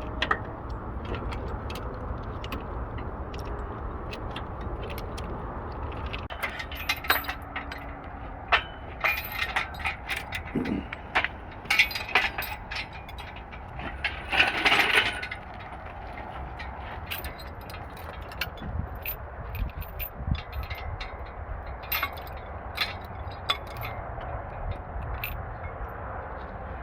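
Irregular metallic clinks and clatter of hand tools and bolts on engine metal, busiest through the middle, with a short rasping burst about halfway through, over a steady low hum.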